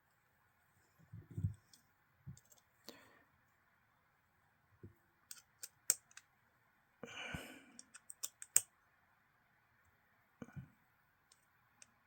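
Faint, scattered light clicks and taps of a folding knife's parts and small tools being handled during reassembly, with a run of quick clicks about five to nine seconds in and a couple of soft knocks.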